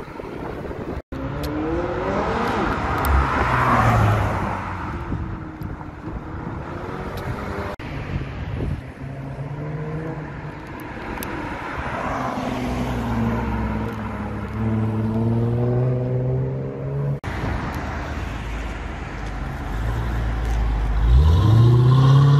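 Sports cars accelerating hard one after another in short clips, each engine revving up with its pitch climbing. A Jaguar F-Type pulls away in the middle, and a Dodge Challenger's engine note rises loudly near the end.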